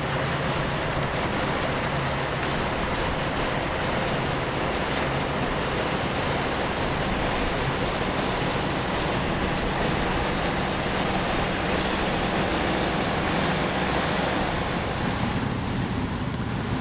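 Vintage Massey Ferguson harvest machinery at work: a 780 Special combine and a 135 tractor with a baler, their engines running steadily under a constant rushing noise.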